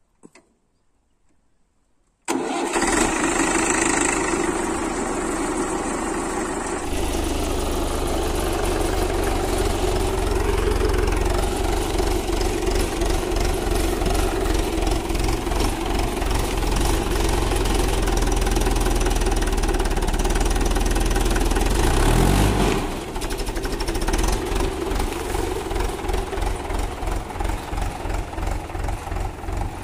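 Tractor diesel engine starting suddenly about two seconds in, then running under load with a heavy low beat as it pulls a cultivator on cage wheels through a wet paddy field. Its sound dips briefly about two-thirds of the way through, then carries on with an uneven pulse.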